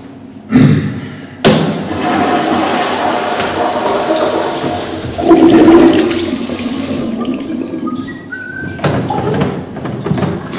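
A toilet flushing: a thump about half a second in, then a rush of water that starts abruptly a second later and runs for about five seconds. Near the end, a towel pulled down from a wall-mounted towel dispenser.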